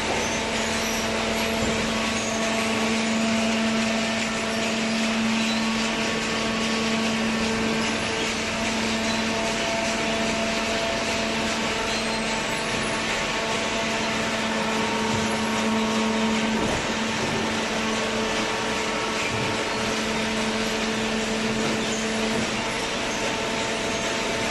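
Hydraulic cardboard baler running: the steady hum of its motor and hydraulic pump, with a constant whine over an even mechanical noise.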